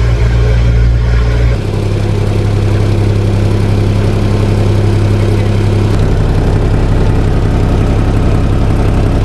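A small vehicle's engine running while driving. Its note shifts about a second and a half in and again about six seconds in.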